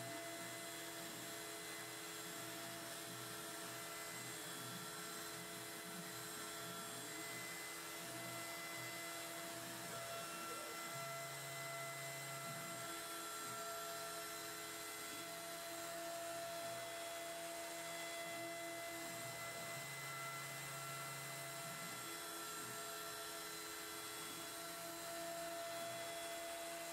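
Faint steady hum of the X-Shaper Plus CNC router running an air cut, with its spindle on and the gantry moving. A lower tone comes in twice, each time for about two seconds.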